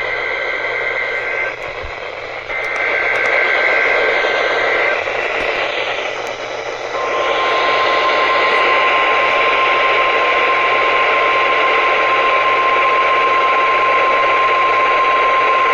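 NOAA Weather Radio Required Weekly Test from station WXL39, heard over a radio receiver with steady static hiss: raspy two-tone SAME digital header data bursts, then about seven seconds in the steady 1050 Hz warning alarm tone comes on and holds.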